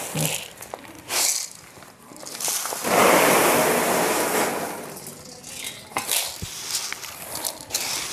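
Dry chickpeas rustling and clicking as they are handled and tipped from a steel bowl onto a heap of grain. About three seconds in, a louder rushing noise lasts a couple of seconds.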